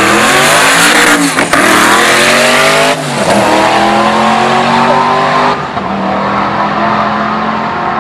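Twin-turbo Corvette drag car running down the drag strip at full throttle: the engine's pitch climbs, drops sharply at about one and a half seconds and again at three seconds as it shifts gears, then keeps pulling and grows fainter as the car gets farther away.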